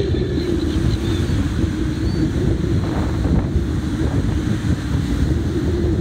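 Wind buffeting the microphone in a steady rumble, with surf breaking on the beach underneath.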